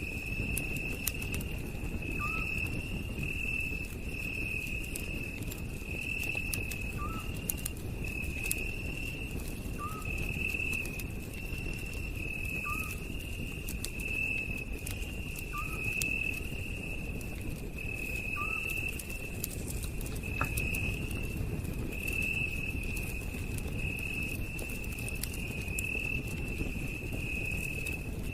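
Night insects chirping in a steady, pulsing high trill, with a short rising chirp repeating every few seconds until about two-thirds of the way through. Scattered faint crackles of a campfire sound over a low rumble.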